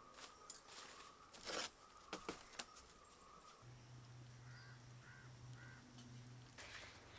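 Faint knocks, clicks and a short rustle as wicker baskets of Chinese potatoes and greens are set down and handled. After that, a low steady hum with three short faint bird calls over it.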